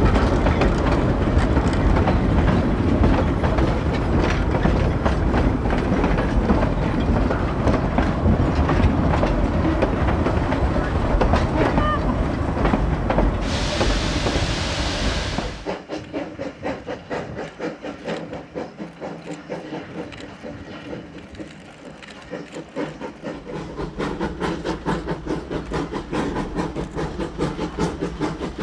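Narrow-gauge steam train led by a Baldwin C-18 consolidation locomotive, passing loud and close with heavy rumble and wheel clatter over the rail joints, and a hiss of about two seconds near the middle. The sound then drops suddenly to a quieter, regular beat of the train working, which grows louder again near the end.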